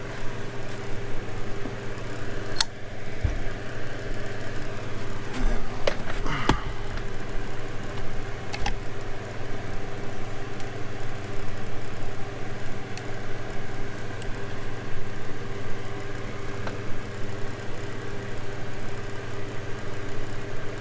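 A steady low mechanical hum with a few sharp clicks and knocks, mostly in the first half, from parts being handled.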